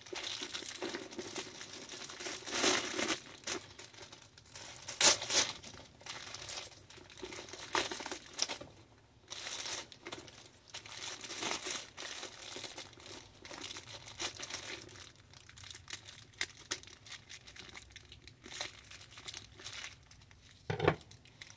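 Irregular crinkling and rustling of packaging as a new handbag is unwrapped and handled, with a few sharper clicks.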